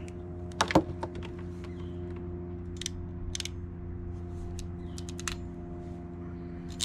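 Hand crimping tool clicking as a red insulated terminal is crimped onto the red-striped positive wire of a power cable: a handful of scattered sharp clicks over a steady low hum.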